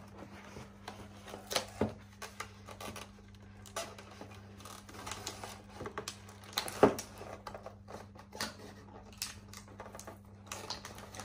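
Cardboard packaging rustling and plastic parts clicking as laser tag units and their straps are pulled out of a cardboard box insert: irregular handling noise with a few sharper knocks, the loudest about seven seconds in.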